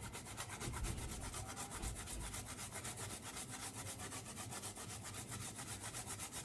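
Fresh ginger scraped over a raw whole chicken in rapid, even rubbing strokes, about nine a second.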